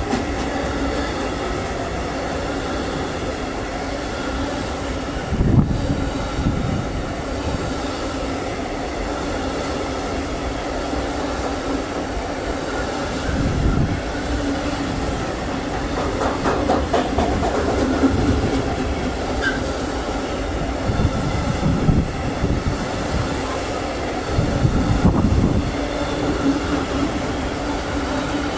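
Freight train wagons passing at speed close by: a steady rumble and rattle of wheels on the rails, with several louder clattering swells every few seconds.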